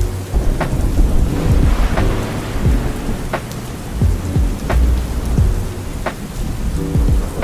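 Steady rain with a low rumble of thunder, laid over a mellow lo-fi track with sustained keys and a slow, even drum beat.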